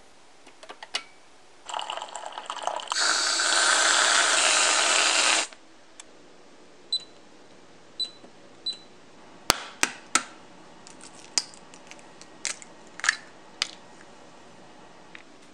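A coffee machine runs and fills a ceramic mug for a few seconds, then stops. Soon after come three short, high beeps from a cooktop's touch controls as it is switched on, followed by scattered clicks and clinks of kitchenware.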